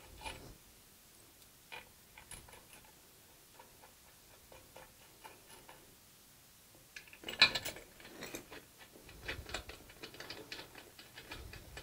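Bolts being fitted and tightened on a metal antenna mounting bracket: faint scattered metallic clicks, then a busier run of clicks and rattles from about seven seconds in.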